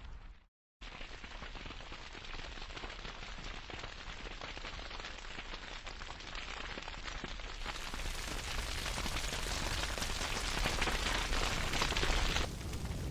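Fire crackling: a dense run of small pops over a rushing noise, getting louder through the second half, with a brief dropout just after the start.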